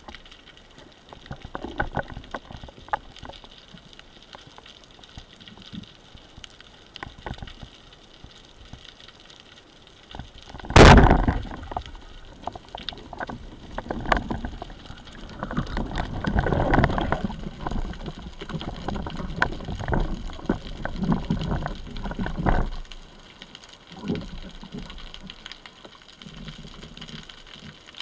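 Underwater sound through a camera housing: scattered faint clicks, then a single loud sharp crack of a speargun firing about eleven seconds in. Several seconds of knocking, rattling and scraping follow as the speared sharpsnout seabream is worked out of the rocks, dying down about two-thirds of the way through.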